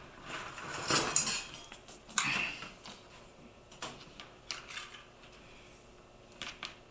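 Handling noises from framing materials on a work surface: two louder rustling, scraping sounds about a second and two seconds in, then a few light clicks and taps.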